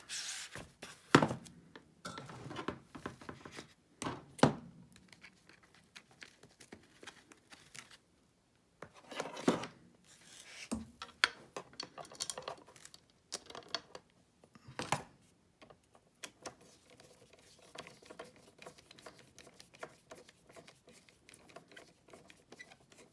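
Small parts being handled and screwed together on a workbench: a screwdriver picked up and a rubber-footed arm fitted and screwed onto a base plate. There are a few sharp knocks and clicks, the loudest in the first few seconds, with light rustling and tapping between.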